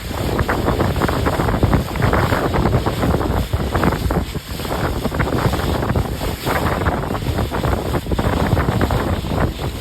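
Heavy wind buffeting the microphone aboard a moving motorboat, in uneven gusts, with the rush of water under the hull.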